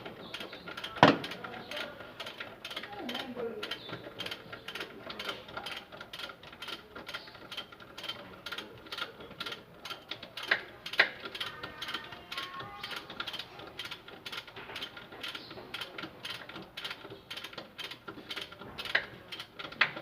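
Ratchet wrench clicking in quick, even runs as bolts are turned, with a few louder metal knocks.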